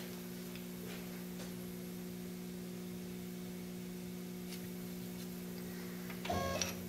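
Steady electrical hum of a few constant low tones from an idle CNC lathe setup, with the spindle stopped. Near the end comes a short mechanical whir lasting about half a second.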